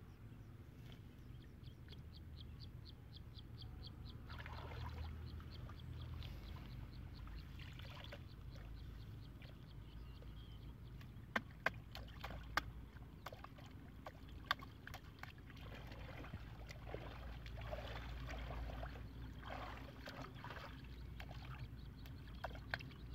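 Hands sloshing and swishing through shallow muddy water, with a run of sharp little clicks and splashes about halfway through. A faint rapid ticking sounds near the start.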